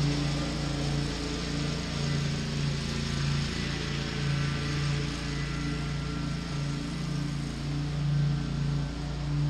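Zero-turn riding mower engine running steadily under mowing load, a constant low hum that swells and dips slightly.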